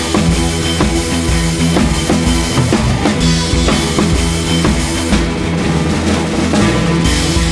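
Background music with a steady drum-kit beat over sustained bass and instrument notes.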